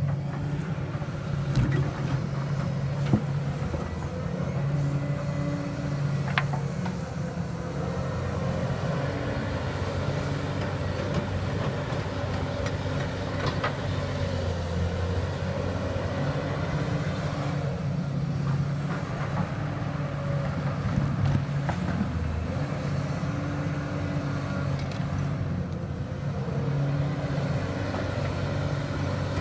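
Excavator's diesel engine running steadily while digging, its pitch rising and falling as the load changes, with a few sharp knocks.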